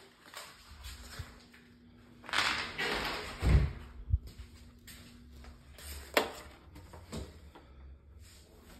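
Footsteps and phone handling noise: a rustle lasting about a second, two low thumps, then two sharp clicks a second apart, over a faint steady hum.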